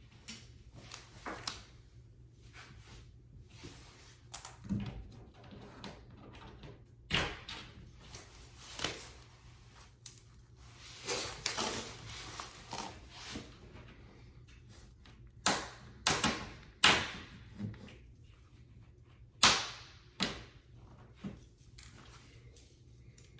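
Irregular knocks, clicks and clatter of flat-pack furniture parts and hardware being handled during assembly, with a few sharp, louder knocks in the second half.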